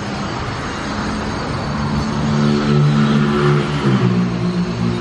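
A motor vehicle driving past, its engine growing louder to a peak about three seconds in, the engine note dropping in pitch near four seconds in as it goes by.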